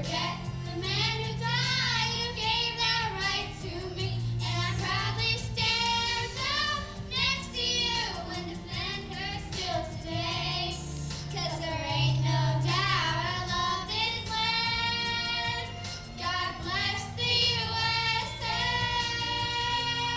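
Young girls singing a song together into microphones over instrumental accompaniment played through the stage PA, the voices holding long notes and moving through the melody.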